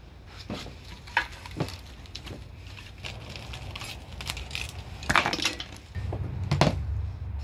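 Steel press parts being handled and set down on cardboard: scattered clinks and knocks with the rustle of plastic wrap. The loudest are a couple of sharp knocks about five and six and a half seconds in.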